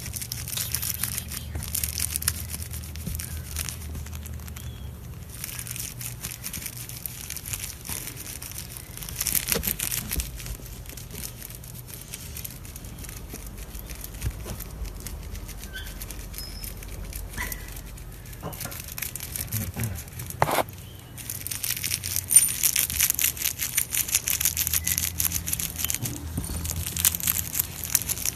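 Rustling and crackling with many small clicks: fabric and handling noise close to the microphone as kittens move about on blankets.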